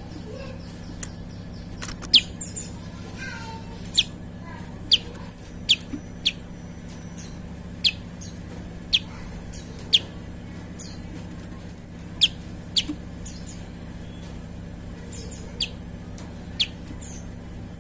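Prinia (prenjak) calling: a string of sharp, very short chirps that fall in pitch, about one a second and irregularly spaced, with fainter high bird calls between them over a steady low hum.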